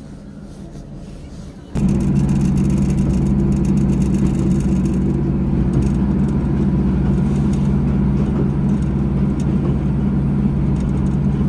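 Train running: a steady engine drone over rail rumble, which comes in abruptly about two seconds in and then holds steady.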